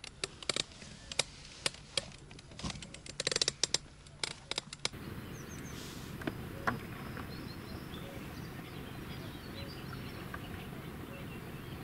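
A run of sharp clicks and taps from fishing gear being handled for about the first five seconds. Then steady lakeside outdoor hiss with a few faint bird chirps.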